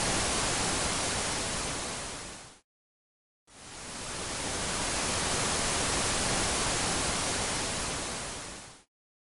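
TV static hiss, fading out after about two and a half seconds into a second of dead silence, then fading back in and fading out again near the end.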